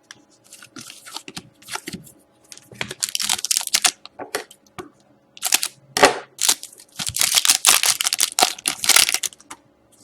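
Trading cards and their pack wrapper being handled: irregular rustling, sliding and crinkling, busier and louder in the second half.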